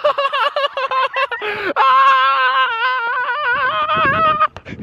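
A young man yelling wordlessly in a high, wavering voice: several short cries, then from about two seconds in one long wobbling yell that breaks off just before the end.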